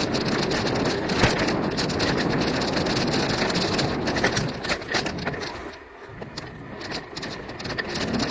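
Mountain bike ride down a dirt forest singletrack: wind on the camera microphone and tyres rolling over the trail, with the bike and camera mount rattling over bumps. A sharp knock about a second in, and the noise drops briefly a little past halfway.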